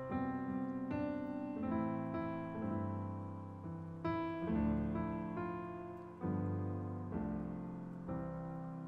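Gentle solo piano music: notes and chords struck about once a second and left to ring out.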